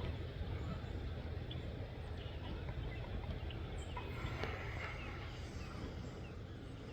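Steady low outdoor rumble with a faint background hiss, and a few faint short chirps about four to five seconds in.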